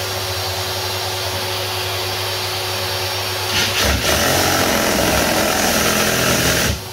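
Ryobi 18V HP brushless reciprocating saw cutting nail-embedded timber along the grain, with the blade catching. The cutting runs steadily, grows louder and harsher about halfway through, and drops back sharply just before the end.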